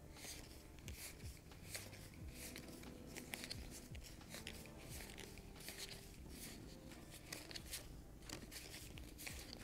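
Monopoly Deal paper playing cards being slid off a hand-held stack one at a time: a run of soft, quick swishes and flicks, about two or three a second.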